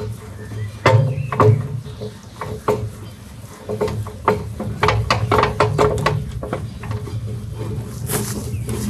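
Irregular metal clicks and clanks as the parts of a tractor's rear hitch and linkage are handled and worked loose, over a steady low hum.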